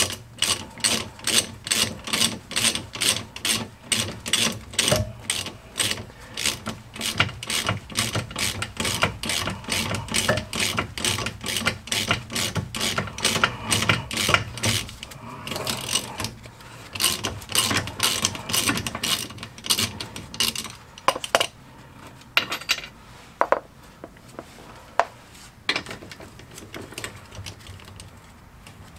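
Hand ratchet clicking in quick regular strokes, about three a second, undoing the 13 mm bolts of a front anti-roll bar clamp. After about sixteen seconds the strokes thin out to scattered single clicks as the bolts loosen.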